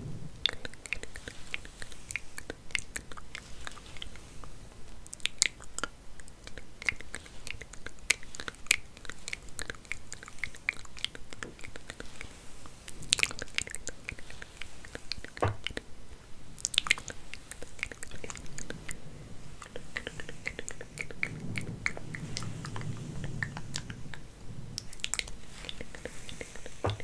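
Hair being combed and handled close to the microphone: a dense, irregular crackling and scratching with occasional louder snaps.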